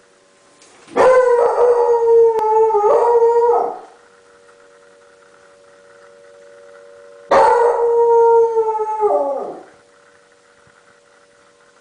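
A pet dog howls twice, each long howl holding a steady pitch and then dropping away at the end, in answer to a tornado warning siren. The siren's faint steady tone can be heard between the howls.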